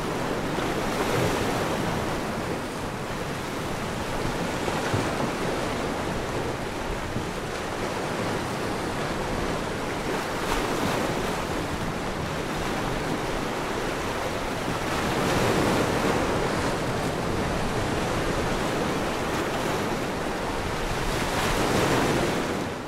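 Ocean surf: a steady rush of waves breaking on a shore, swelling and easing every few seconds.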